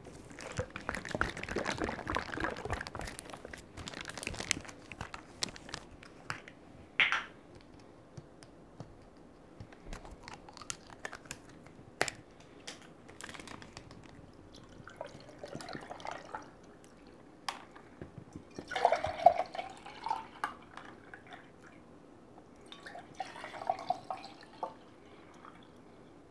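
Clicks and rustling as a plastic bottle of sikhye is handled, then the sweet rice drink poured from the 1.8-litre bottle into tall glasses, three separate pours a few seconds apart, splashing over ice.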